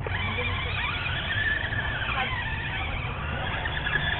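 Toy remote control car's electric motor whining as it drives, its pitch rising and falling with the throttle.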